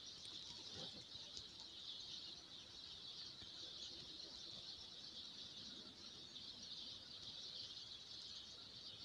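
Near-quiet outdoor ambience: a faint, steady high-pitched chirring hiss, with no distinct events.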